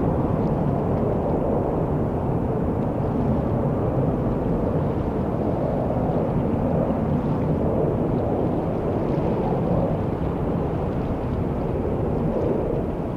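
Airbus A330-200's GE CF6-80E1 turbofan engines at takeoff power, heard as a steady low rumble.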